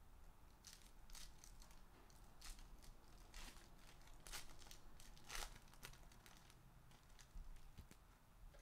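Foil wrapper of an Upper Deck SPX hockey-card pack being torn open and crumpled by hand: a string of faint, short crinkles and rips, the loudest about three and a half and five and a half seconds in.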